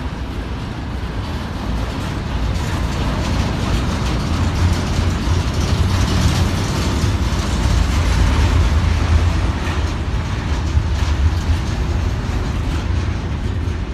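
Double-stack intermodal freight cars rolling past: a loud, deep rumble of steel wheels on the rails with rattling and clanking, swelling in the middle and easing off near the end.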